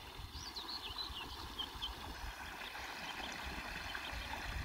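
A lost bird chick peeping: a quick series of high, wavering peeps in the first two seconds, then a few fainter ones near the end. Underneath runs the steady rush of the stream and a low rumbling.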